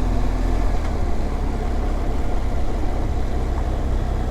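BMW R1200GSA's boxer-twin engine running steadily while riding, with an even rush of road and wind noise.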